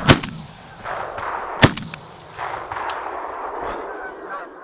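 Two shotgun shots about a second and a half apart, the first right at the start, fired into a flock of geese that keep honking between and after the shots.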